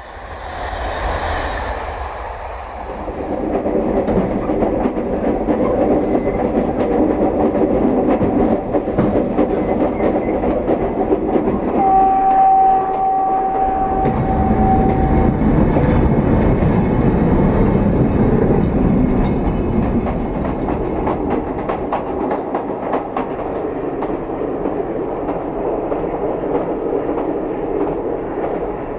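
Train running on rails: a steady rumble with the clickety-clack of the wheels over rail joints, building up over the first few seconds. About twelve seconds in, one steady tone sounds for about three and a half seconds.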